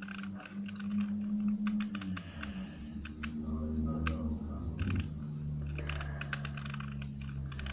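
Fingernails picking and scraping at stickers on a plastic 2×2 Rubik's cube, with many small sharp clicks and ticks as the cube is handled. A low hum that shifts in pitch a couple of times runs underneath.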